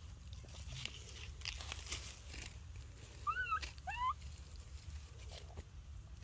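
Two short squeaky animal chirps a little over three seconds in, about a second apart, each sweeping up and down in pitch. Soft crackling rustles come before them.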